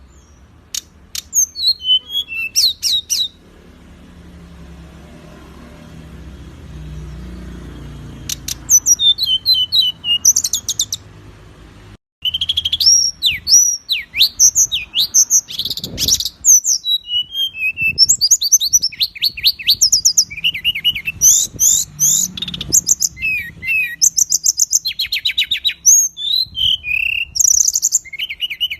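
Songbird song of fast, harsh, rapidly repeated notes and quick sweeping whistles, the 'tembakan' bursts of a masteran tutor recording. The song comes in two short bursts over a low hum, then runs on densely after a break about twelve seconds in.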